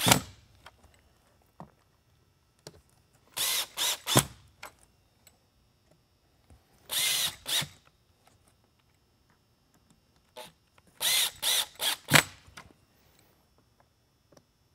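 Cordless drill driving screws into a plastic light-bar base in short bursts, three groups of quick pulses about four seconds apart, each group ending in a sharp click. The screws are being snugged down a little at a time, back and forth between them, so the dome seals evenly on the base.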